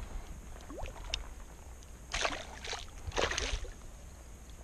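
Shallow lake water splashing in two short bursts, about two and three seconds in, as a small caught fish is let go by hand at the water's edge.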